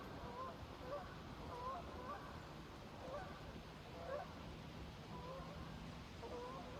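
A flock of Canada geese honking in flight: a steady run of short, overlapping honks, about two a second.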